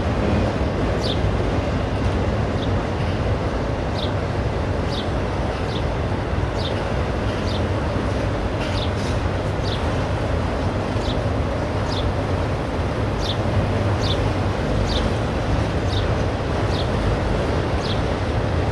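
Autorack freight cars rolling past with a steady rumble of wheels on rail. Short, high, slightly falling squeaks recur about once a second over the rumble.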